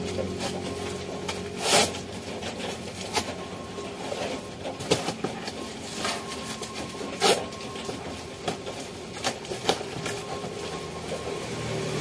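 Scattered clicks, knocks and rustles of cardboard boxes and packaged goods being handled and moved on a shop counter, two sharper knocks standing out about two seconds in and again past the middle, over a steady hiss of rain.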